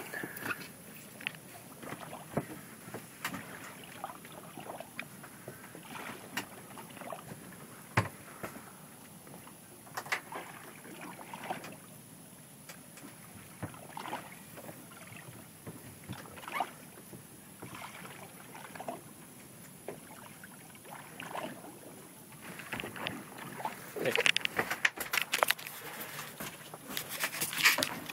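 A drifting fishing boat with water lapping against the hull and scattered knocks and clunks. The knocks come thicker and louder in the last few seconds.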